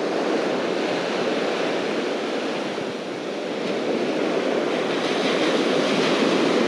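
Small ocean surf breaking and washing up the sand at the shoreline, a steady rush that grows louder with more hiss about five seconds in as a wave comes in.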